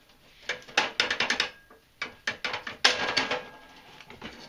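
Steel plow-mount bracket being worked loose and slid off its square-stock mount: a run of metallic clicks, knocks and scrapes, clustered around one second and three seconds in and dying away near the end.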